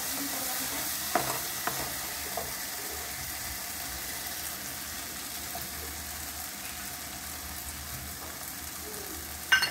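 Onion-tomato masala frying in oil in a non-stick kadai, with a steady sizzle as a wooden spatula stirs it. There are a few light knocks of the spatula on the pan in the first couple of seconds, and a sharp clack just before the end.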